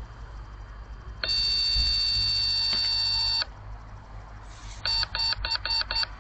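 Reolink RLC-823A security camera's built-in siren going off at an intruder: one steady high beep lasting about two seconds, then five short quick beeps near the end.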